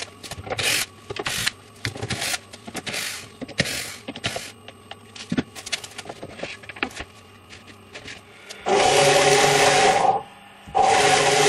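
Short knocks, clicks and scrapes as the metal cover of a shop-made automatic chop-saw stop fence is handled and opened. Near the end come two loud, steady runs, about a second and two seconds long, of the fence's servo-driven stop carriage travelling along its linear rail on a timing belt: a rushing sound with a steady hum in it.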